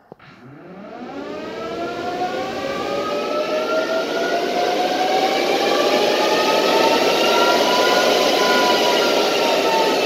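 Cooling fans of a custom Power Jack inverter spinning up at power-on: a whine rising in pitch over a rush of air. It grows louder over several seconds, then levels off loud, easing slightly in pitch near the end.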